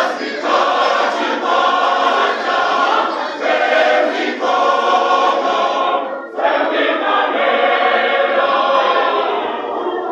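Many voices singing together as a choir, a full group song; the singing breaks off briefly about six seconds in and picks up again.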